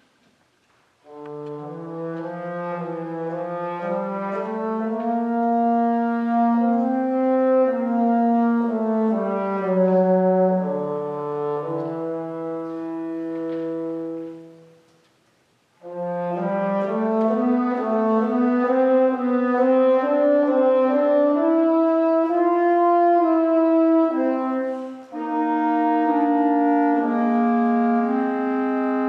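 Bass clarinet and bassoon playing a slow duet in long held notes, the two parts moving against each other. They start about a second in, stop together about halfway through, and come back in a second later.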